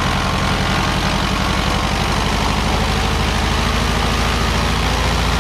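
Lycoming IO-390 four-cylinder engine of a Van's RV-14 homebuilt, uncowled and turning a constant-speed propeller, running steadily at about 2,000 RPM on its first ground run. It runs smoothly, "silk", as the new, not yet broken-in engine holds the higher power setting.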